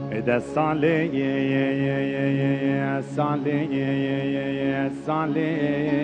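Kurdish dengbêj-style singing: a voice holds long wordless vowel notes with wavering ornaments, over a steady low instrumental drone. Short breaks about three and five seconds in.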